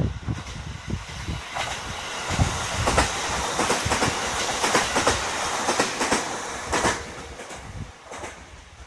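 Electric local passenger train running past, its wheels clattering over the rail joints, then dying away about two seconds before the end.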